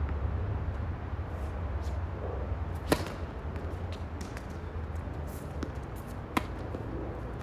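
Tennis rally on a hard court: sharp pops of racquets striking the ball, the loudest about three seconds in and another about six seconds in, with fainter ball hits and bounces between, over a steady low hum.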